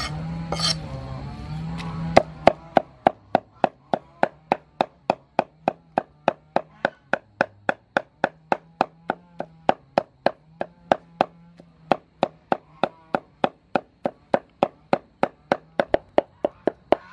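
Meat cleaver chopping raw pork on a wooden chopping block, mincing it with steady, even strokes at about three a second. The rapid chopping starts about two seconds in.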